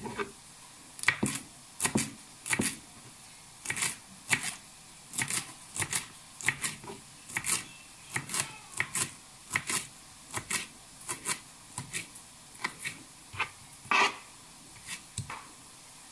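Kitchen knife chopping green vegetable stalks on a cutting board: a run of short, sharp knocks of the blade on the board, about two a second and somewhat uneven.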